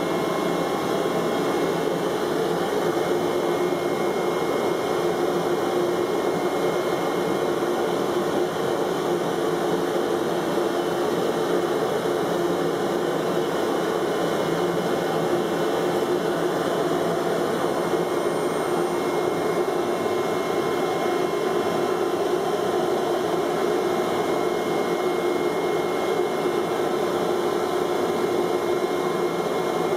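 CNC flatbed cutting machine running as it cuts carbon fibre prepreg: a steady, even machine drone with a constant hum underneath.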